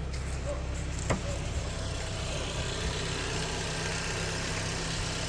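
Car engine idling steadily, with a single sharp click about a second in.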